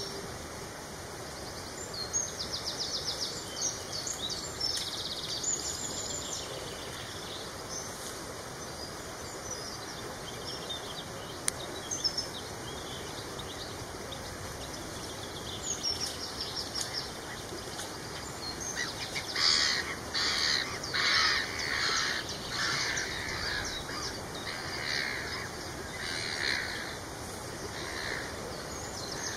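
Wild birds singing and calling over a steady outdoor background. About two-thirds of the way through, a run of louder, rasping calls repeats roughly twice a second for several seconds.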